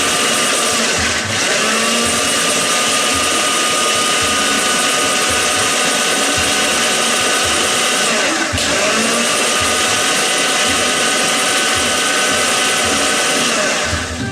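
Electric blender running steadily through a liquid marinade with a high whine. It dips briefly about a second in and again about eight seconds in, then stops at the end.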